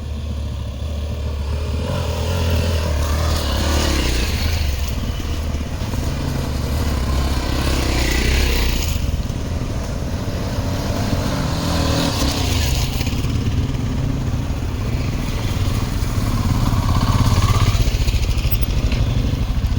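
Motorcycle engine running steadily as the bikes set off, with stretches of rushing noise over it.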